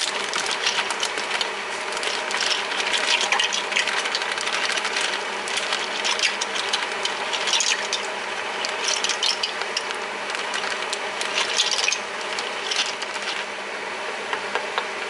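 Dry conchiglie pasta shells rattling in their plastic bag and clattering into a saucepan of water: a long run of small clicks and plastic crinkling that thins out near the end, when the shells are stirred in the pan.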